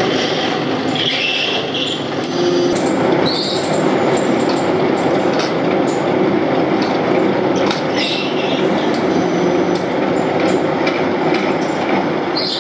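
Drill press running and drilling into metal motorcycle sprocket blanks: a steady machine noise with short high squeals of the bit cutting the metal a few times, and scattered light clicks.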